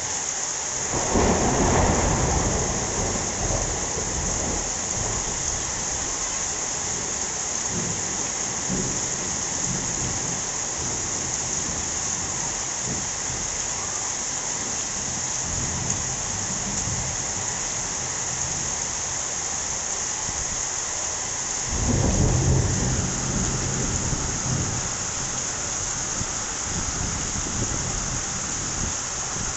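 Steady heavy rain hissing throughout, with thunder rumbling twice: once about a second in and again about two-thirds of the way through, each fading over a few seconds.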